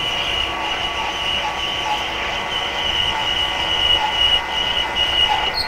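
End mill on a milling machine cutting the bottom seat of the handle bore in a stainless steel hammer head, giving a steady high-pitched squeal that pulses slightly. The squeal cuts off suddenly near the end.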